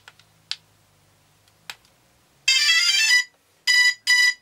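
DJI Phantom 2 quadcopter powering up. A couple of sharp clicks are followed, about two and a half seconds in, by its startup tune, a quick run of electronic tones, and then a series of short, even beeps about two and a half a second, the signal that the drone has booted.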